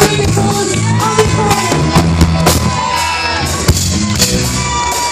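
A live band playing amplified music: button accordion, electric bass and drum kit, with drum and cymbal hits and a voice over the band.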